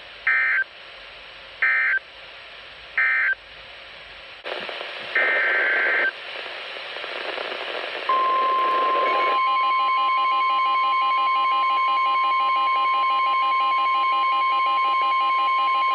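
NOAA Weather Radio alert signalling through a Midland WR100 weather radio. Three short screeching digital data bursts sound about a second and a half apart, marking the end of the watch message. About five seconds in comes a longer data burst, and a few seconds later the steady single-pitch warning alarm tone starts; about a second after that a rapid pulsing beep joins it, the radio sounding its own alert for the incoming severe thunderstorm warning.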